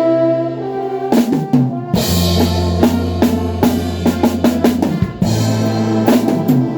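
Live band music led by a drum kit: a held chord, then about a second in a quick drum fill that brings the band back in, with a low bass note and steady snare and bass-drum beats.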